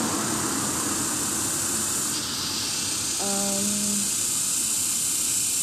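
Steady hissing background noise with a brief low hum about three seconds in.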